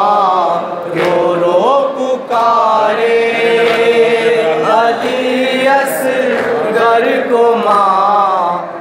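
Male voices chanting a noha, a Shia mourning lament, together through microphones, in long wavering held notes.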